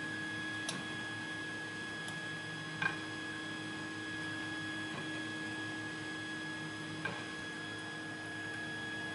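Steady whine and hum of 3D printers running in the background, holding a few constant tones, with four faint, short clicks spread through it.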